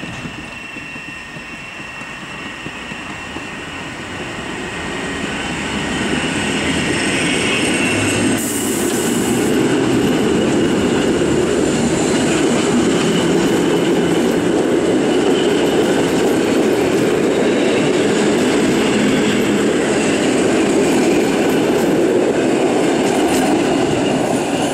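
Two coupled PKP EN57 electric multiple units pulling away and passing close by, with wheels running on the rails and the motors working. The sound grows louder over the first ten seconds and then holds steady as the cars go past, with a brief hiss about eight seconds in.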